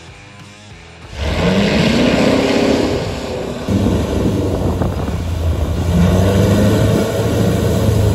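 A bush plane's piston engine and propeller running loud as it rolls by on the runway, coming in about a second in. The engine note climbs, dips briefly near three seconds, then picks up again.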